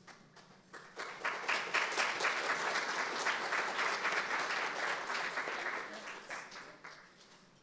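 Audience applauding. A few scattered claps at first, swelling into full applause about a second in, then thinning and fading out near the end.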